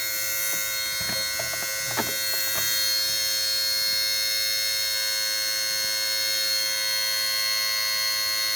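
High-pitched electrical buzz and squeal from a module at the front of a 2002 Mercedes SLK230's engine bay, running steadily with the ignition on and the engine off. It is a fault the owner cannot explain. A few faint clicks come in the first three seconds.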